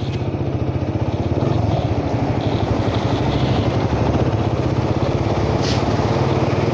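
Motorcycle engine running steadily under way, a low hum with fast even pulsing. A short high chirp sounds about five and a half seconds in.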